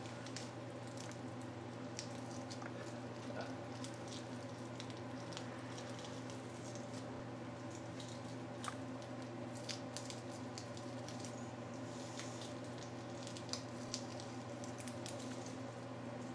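Faint handling sounds as moist, stuck shed skin is peeled by hand off a spitting cobra: scattered small clicks and soft rustles over a steady low hum.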